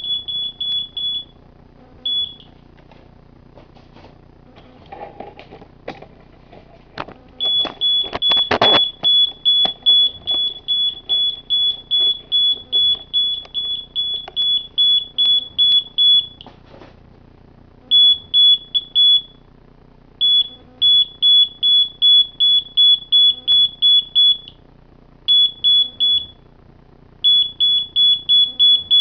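Electronic beeper sounding a single high tone in quick pulses, about three a second, in runs that stop for a second or more and start again. There is a short clatter a little after eight seconds.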